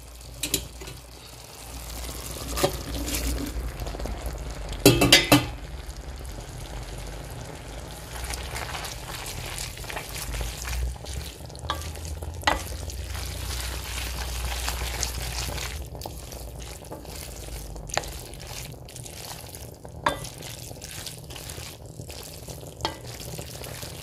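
Spaghetti being stirred with a wooden spoon through a simmering cream sauce in a stainless steel pot, a steady wet cooking noise. Scattered knocks of the spoon against the pot, the loudest about five seconds in.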